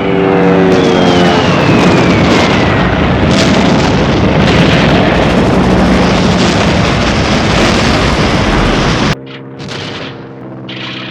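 Wartime sound-effects recording: a propeller aircraft engine drone with falling high whines gives way to a long, loud explosion-like roar with sharp cracks. The roar cuts off abruptly about nine seconds in, and a quieter steady hum follows.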